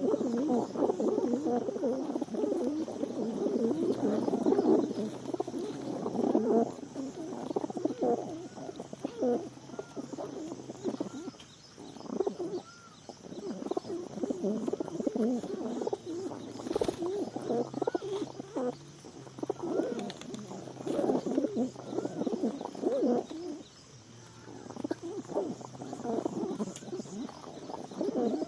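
Many pigeons cooing over one another in a dense, continuous chorus that swells and dies back several times.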